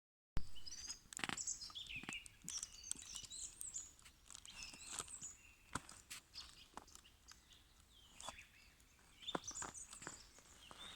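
Small songbirds chirping and twittering, thick in the first few seconds, thinning out, then picking up again near the end. Scattered sharp clicks and crunches of footsteps on the thawing forest floor run underneath.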